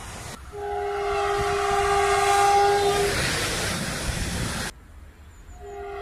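Horn of a Croatian Railways (HŽ) Končar electric multiple unit sounding one steady blast of about two and a half seconds as the train passes close, followed by the rush and rumble of the train going by, which breaks off abruptly. Near the end another train's horn starts sounding, a little fainter.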